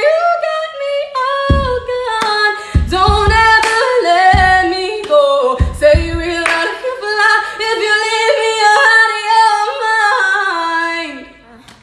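A woman singing a cappella, a solo voice with long held notes and quick runs up and down. A few low thumps sound under the voice in the first half.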